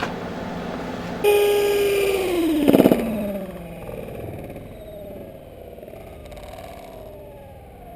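The 70 mm electric ducted fan of an Exceed RC F/A-18 foam jet whines, its pitch falling steadily as it spools down. About three seconds in there is a brief loud clatter of knocks as the jet hits the ground hard.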